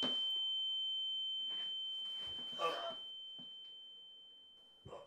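A steady high-pitched ringing tone, like ear-ringing in a film soundtrack, slowly fading away. A faint breath-like sound comes about two and a half seconds in, and a soft thump near the end.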